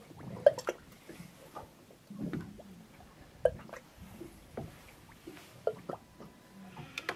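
Water lapping against the hull of a drifting boat, with scattered small slaps and drips.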